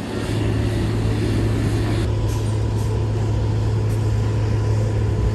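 A steady, low engine drone over a broad noisy background.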